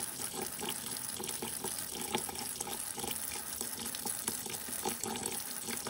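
Kitchen tap running steadily into a sink, with the quick, irregular scrapes of a knife scaling a wet pinfish.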